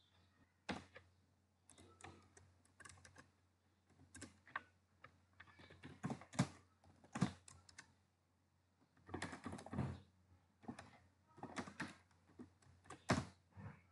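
Computer keyboard typing: irregular runs of keystrokes with short pauses between them, the densest run about two-thirds of the way in.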